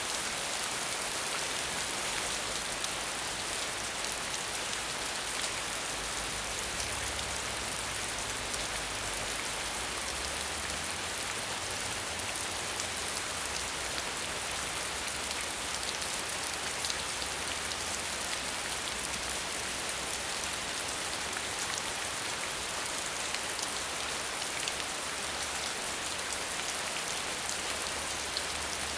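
Steady rain falling on leaves, a continuous hiss with many small drop ticks throughout.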